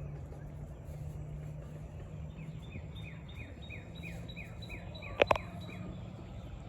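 A small bird singing a run of about a dozen quick, downward-slurred whistled notes over a steady low hum. Two sharp knocks just after five seconds in are the loudest sounds.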